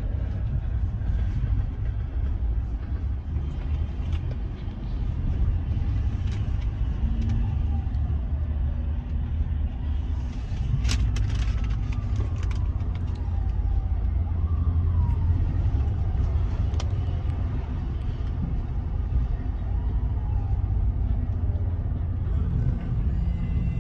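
Road vehicle engine rumbling steadily. A few faint falling tones and a cluster of clicks come about halfway through.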